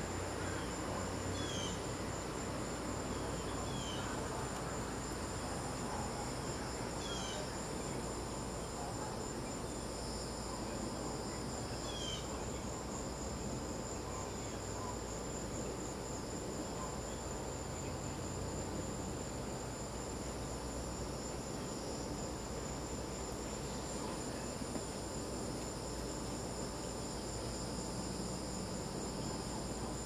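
Chorus of crickets chirping in a steady high, pulsing trill. A few short descending bird chirps sound over it in the first half.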